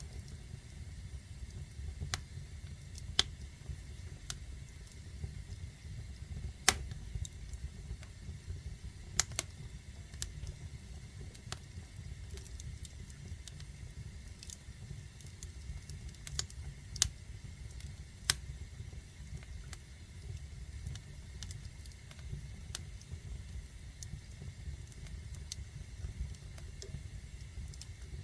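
Fire burning in a home fireplace, crackling with irregular sharp pops over a steady low rumble.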